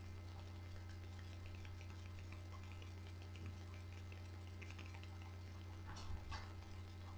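Low steady electrical hum with faint scattered light ticks and clicks, and a couple of soft knocks about six seconds in.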